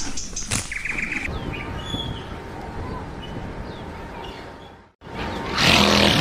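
Small birds chirping faintly over steady outdoor background noise, which fades out. After a brief break, a louder sound with a steady pitch starts near the end.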